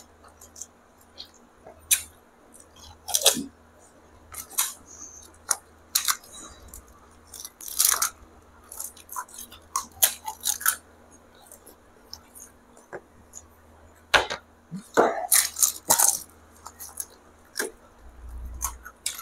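Pani puri being eaten: crisp puri shells crunching and being chewed in quick, irregular crackles.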